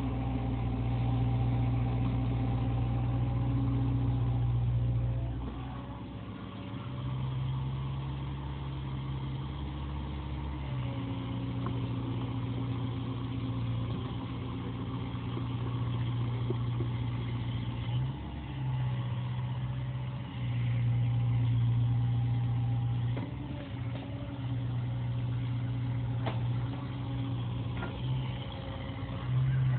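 CAT 305 mini excavator's diesel engine running steadily, its note dipping and swelling every few seconds as the hydraulics take load while it works, with a few faint clanks.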